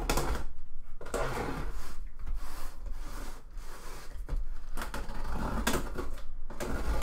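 Utility knife slicing along clear packing tape wrapped around a cardboard shoebox, with the box handled and shifted: several stretches of scraping and tearing broken by short pauses.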